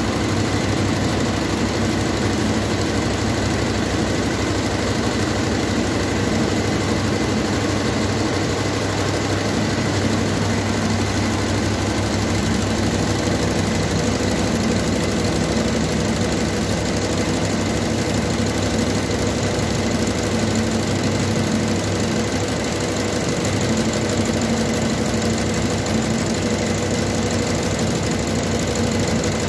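Industrial multi-needle embroidery machine running, its needles stitching in a rapid, steady mechanical chatter.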